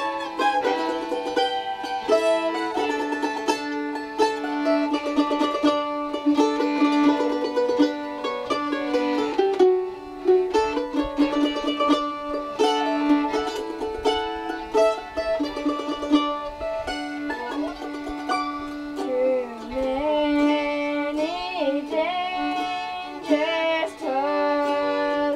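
Mandolin and fiddle playing an acoustic tune together: quick, rapidly repeated picked mandolin notes under the fiddle's bowed melody. Sliding, wavering fiddle notes come in past the middle.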